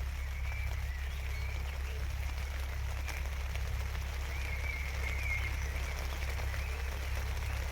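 Steady rain falling, an even hiss with faint scattered drop ticks over a constant low rumble. Faint warbling calls come and go above it.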